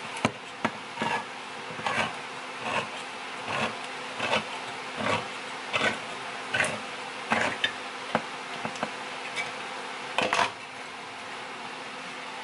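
Handheld manual can opener cranked around a steel can, each turn of the key giving a short clicking crunch about every three-quarters of a second as the cutting wheel works round the lid. A louder cluster of clicks comes about ten seconds in.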